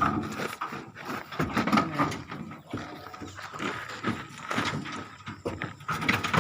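Nellore Jodipi sheep moving about, with irregular knocks and scuffing from their hooves and bodies.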